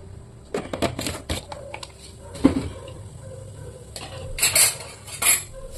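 Metal kitchen utensils clinking and clattering in a series of separate knocks, the loudest about two and a half seconds in, with a quicker cluster near the end.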